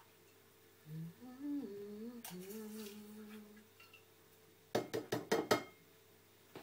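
A person humming a tune to themselves. Then, about five seconds in, a metal spoon knocks sharply against a stainless-steel saucepan about five times in quick succession while food is served out of it.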